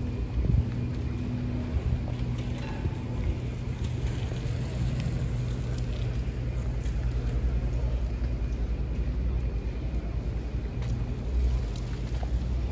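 Outdoor ambience dominated by a steady low rumble, with a few faint ticks.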